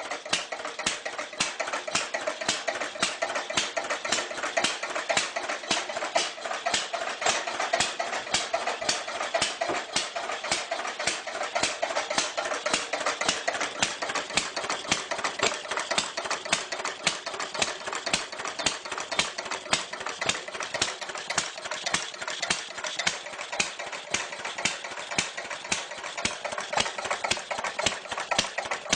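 Old engine running at a steady idle with a rapid, even clatter of sharp clicks and little low rumble.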